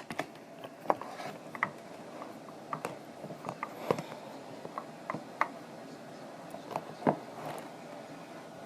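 Irregular light clicks and taps of small objects being handled and set down, at no steady rhythm.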